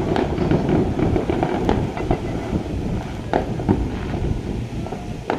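Fireworks going off: about five sharp pops and cracks at uneven intervals over a steady low rumble.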